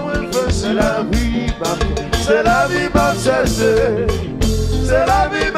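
Live konpa (Haitian compas) band music: a male lead voice sings over a steady drum beat and bass.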